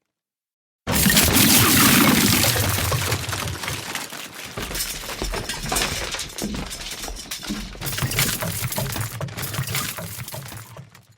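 A pile of toys crashing down and clattering. It starts abruptly about a second in, keeps tumbling in a dense run of many small knocks, and dies away near the end.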